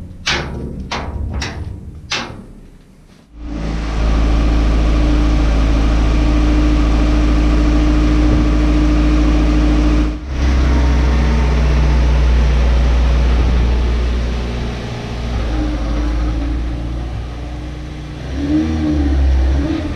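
A few sharp knocks, then about three seconds in a car engine starts and runs steadily and loudly inside a garage, its pitch wavering near the end.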